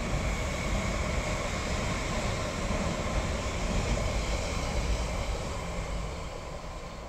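Oslo Metro MX3000 train running across a concrete bridge overhead: a steady rumble of wheels on the track with a steady whine above it, fading near the end as the train moves off.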